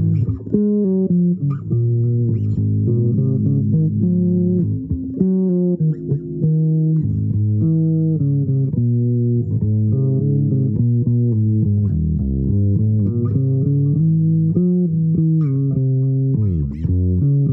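Improvised melody played on a plucked string instrument in a low register, with held, overlapping notes and a pitch slide down and back up near the end.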